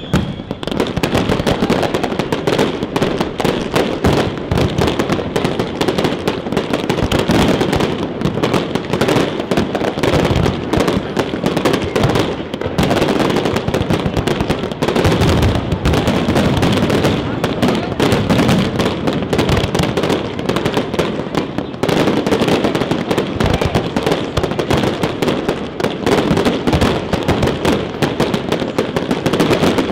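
Aerial fireworks display: a dense, unbroken stream of sharp crackling pops and bangs as shells and crackling stars burst overhead.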